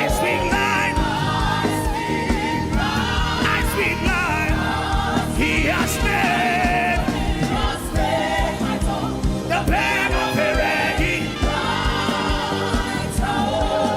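Gospel worship music: a choir singing over instruments with a steady beat.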